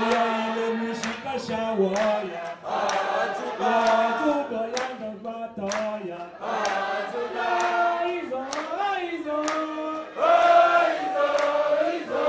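A crowd of men and women singing a chant together, with sharp claps roughly once a second keeping the beat.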